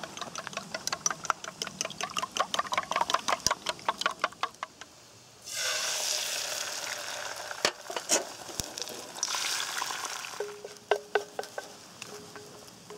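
Chopsticks beating eggs in a stainless steel bowl, a fast, even run of clicks against the metal. About five seconds in, beaten egg poured into a hot frying pan over charcoal starts sizzling suddenly. The sizzle fades after a few seconds into scattered clicks of chopsticks scraping and stirring in the pan.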